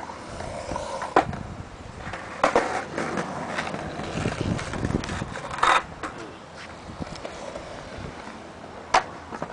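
Skate wheels rolling over smooth concrete, with four sharp clacks spread through the run.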